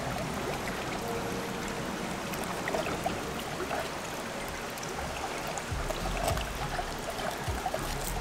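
Steady rush of a river flowing, with quiet background music whose bass line comes in a little past the middle.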